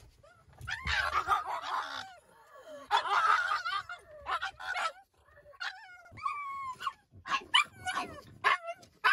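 Pug whining and yipping: two longer, rougher cries in the first few seconds, then a run of short, high yelps that rise and fall in pitch.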